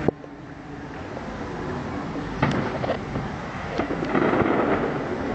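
Aerial firework shells bursting: a sharp bang right at the start, then more reports about two and a half seconds and nearly four seconds in. A louder, denser run of booms follows just after four seconds.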